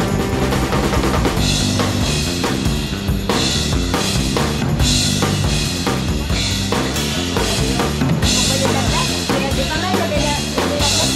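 Background music with a steady drum-kit beat and a bass line.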